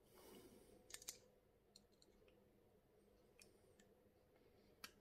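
Near silence with a few faint scattered clicks, the clearest pair about a second in: a thin metal tool picking at the ring on a brass mixer-tap cartridge.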